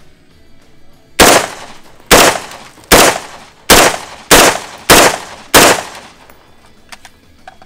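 Rifle firing seven shots of green-tip 5.56 mm ammunition in quick succession, roughly one every 0.6 to 0.9 seconds, starting about a second in. Each report has a short decaying tail.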